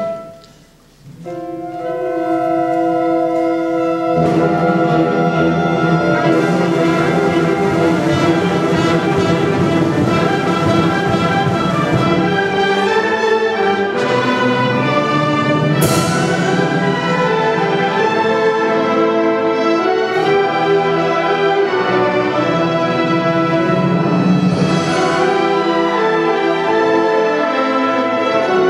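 Concert wind band of woodwinds and brass playing. Just after a brief pause near the start, a few held notes sound, and the full band comes in about four seconds in. There is a single crash about halfway through.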